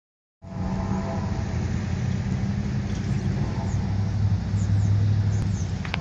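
An engine running steadily with a low hum, starting half a second in, with a few faint short high chirps over it.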